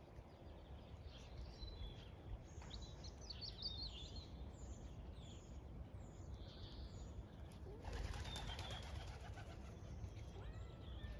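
Small wild birds chirping and twittering in short calls, over a low steady rumble of wind. A brief rustle comes about eight seconds in.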